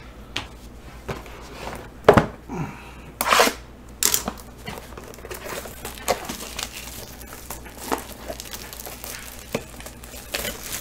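Plastic wrapper of a Panini Prizm football card pack being crinkled and torn open, in a series of short crackles, with a sharp knock about two seconds in.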